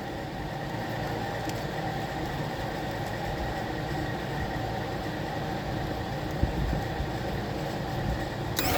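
Golf cart's Kawasaki engine turning over on its starter without firing, in a steady even run. A louder, rapid clattering cuts in near the end.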